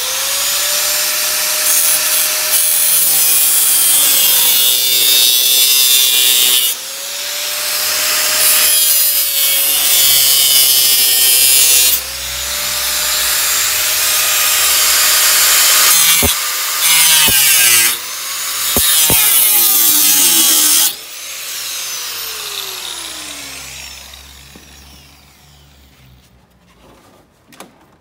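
Electric angle grinder with an abrasive cutting disc cutting the sheet-metal inner panel of a car door, in several passes: a high motor whine that sags in pitch whenever the disc bites, under a harsh cutting screech. Near the end it is switched off and the whine falls away as the disc spins down.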